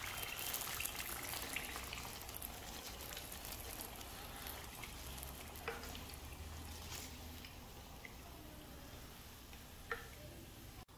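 Spring rolls frying in hot oil: a soft, steady sizzle that slowly fades as the rolls are lifted out. Two light metal clicks from tongs against a wire strainer come about six and ten seconds in.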